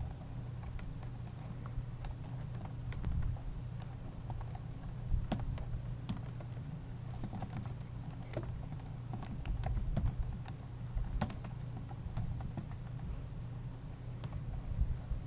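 Typing on a computer keyboard: irregular keystroke clicks in short runs, over a steady low hum.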